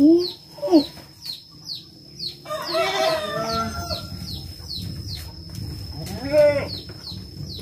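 Domestic chickens: a rooster crowing about two and a half seconds in, with short clucking calls near the start and again near the end, over a repeated high chirp.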